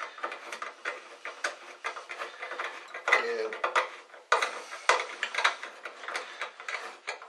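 A hand driver working a screw into a metal light-fixture housing: irregular small metal clicks, taps and scrapes, several a second.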